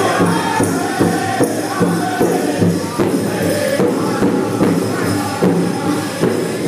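Powwow drum group: several men striking one large shared drum in a steady beat while singing a powwow song together.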